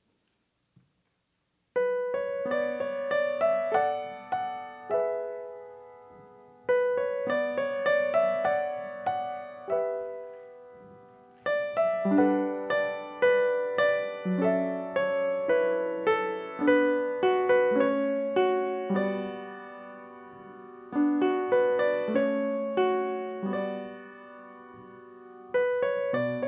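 Solo piano music, starting about two seconds in: struck notes and chords that ring and fade.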